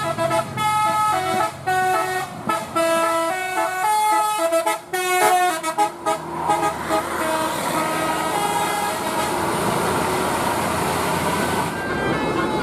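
Bus 'telolet' multi-tone horn playing a quick tune of short stepped notes, loud for the first six seconds or so, then fainter notes over a steady rushing noise.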